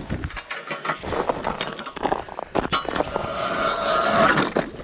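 Boots crunching on snow at a run, then, a little past halfway, a hand-cranked ice auger grinding through thin ice with a steady squeal.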